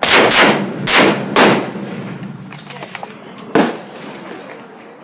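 Several rifle shots fired in quick succession over the first second and a half, then one more about three and a half seconds in, each ringing out with an echoing tail.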